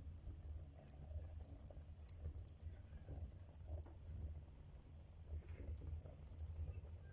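Wood fire in a fireplace crackling: scattered sharp pops and clicks over a low steady rumble.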